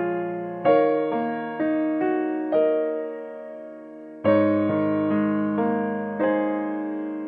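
Background piano music: slow notes and chords that ring and fade, with a fuller chord struck a little past the middle.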